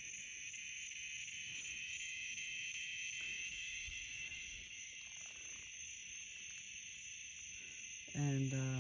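Steady, high-pitched chorus of night insects.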